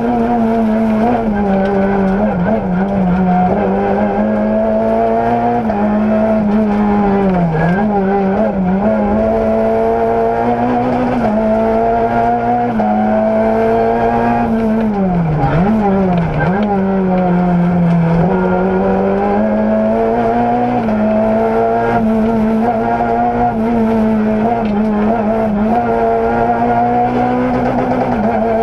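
Engine of a Renault rally car heard from inside the cockpit, running hard at high revs, its pitch dipping and recovering several times, most deeply about fifteen seconds in.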